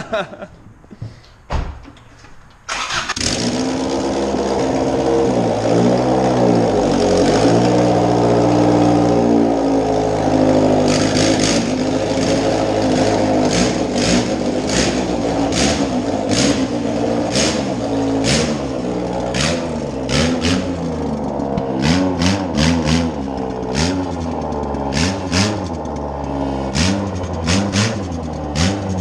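A Honda Civic's four-cylinder engine starts abruptly about three seconds in and runs with no exhaust fitted, revving up and down repeatedly. A long string of sharp cracks sounds over the engine from about the middle onward.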